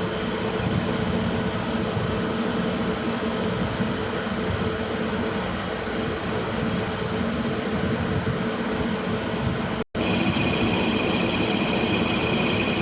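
CNC milling machine running, a steady mechanical noise with a low hum. It breaks off briefly about ten seconds in, and after that a higher steady whine comes in over the running noise.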